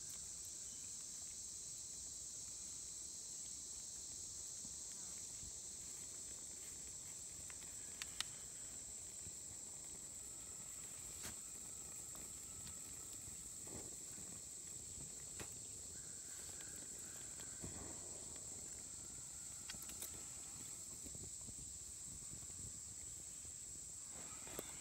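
Steady high-pitched insect chorus, with a few sharp clicks scattered through it, two close together about eight seconds in.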